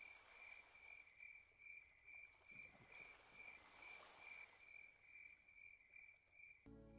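Faint cricket chirping, a steady high chirp repeating about three times a second. Soft sustained music comes in just before the end.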